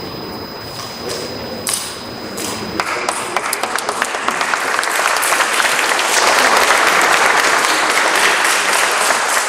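Audience applause breaking out about three seconds in and swelling to a full, steady clapping of many hands.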